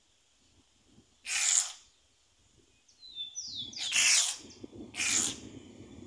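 Whistling heron calling: three loud short calls, about a second in, four seconds in and five seconds in, with high whistles falling in pitch just before the second call.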